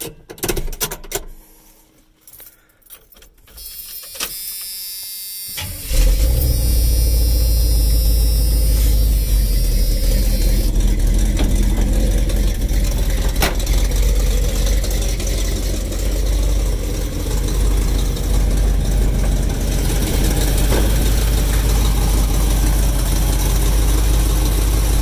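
A Chevrolet 454 big-block V8 is started after a few sharp clicks. The starter cranks for about a second and a half, the engine catches about six seconds in, then runs steadily with a strong low exhaust note. The owner wants it running better than it does and calls its Quadrajet carburetor trash.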